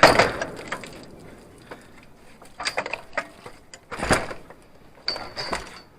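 Scattered metallic knocks and rattles from a scooter just pulled out of the river being handled, with a loud knock at the outset and another about four seconds in.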